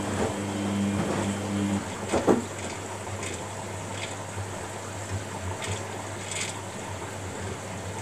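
Washing machine running a wash: the drum turning with water swishing and a steady low hum. A second, higher hum stops about two seconds in, with a couple of knocks just after.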